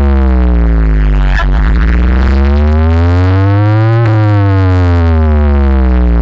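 Electronic pitch-sweep sound effect played very loud through a DJ sound system over heavy bass. The tone slides slowly down, turns at about a second and a half in to climb for about three seconds, then slides down again.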